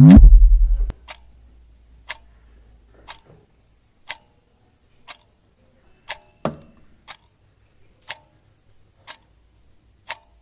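A loud, deep boom in the first second, then a clock ticking steadily about once a second, with a single low thump about six and a half seconds in.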